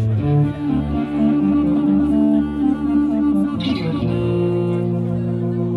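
Live instrumental electro music: electric guitar and clarinet playing over an electronic backing, with held notes under a moving melody line.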